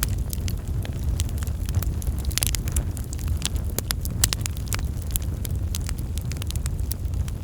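Fire burning with a steady low rumble and frequent irregular crackles and pops.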